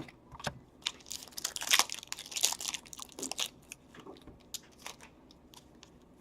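A hockey trading-card pack's wrapper being torn open and crinkled by hand, with a dense stretch of crinkling between about one and three and a half seconds in, then scattered small clicks and rustles as the cards are handled.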